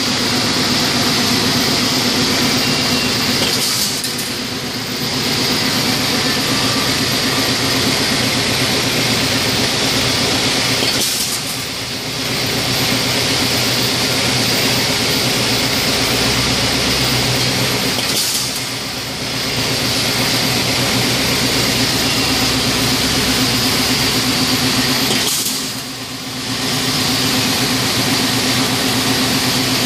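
Wire straightening machine running with a steady mechanical drone as it straightens and feeds wire. Four times, about every seven seconds, there is a brief sharp hiss and a short drop in the running sound as each one-metre length is cut off.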